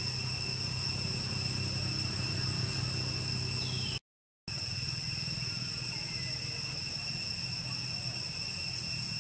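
A steady high-pitched insect drone over a low hum, unbroken except for a half-second gap where the sound cuts out completely just after the middle.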